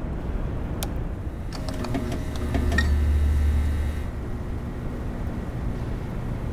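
A wall switch clicks about a second in. A run of ticks follows, and a low hum swells and then settles: overhead lights flickering on.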